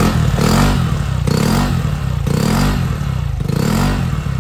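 Yamaha X-Max 125 scooter's single-cylinder four-stroke engine, breathing through a Yasuni aftermarket exhaust, revved in short throttle blips about once a second, each rev rising and falling back.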